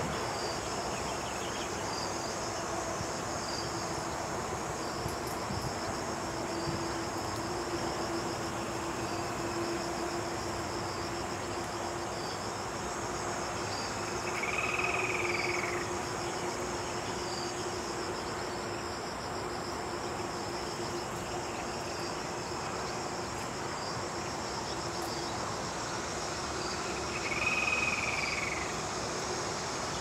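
Steady chorus of insects with a fine pulsing high buzz and a low steady hum beneath. Twice, about halfway through and again near the end, a short whistled call rises and falls.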